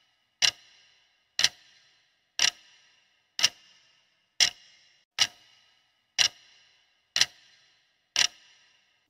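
Countdown-timer sound effect: a clock ticking once a second, nine sharp ticks in all, each with a brief metallic ring.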